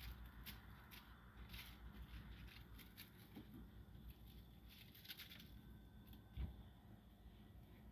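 Near silence with scattered faint crinkling rustles from a tinsel-tufted wand cat toy being batted about by a cat, loudest about five seconds in, and a soft thump a little later.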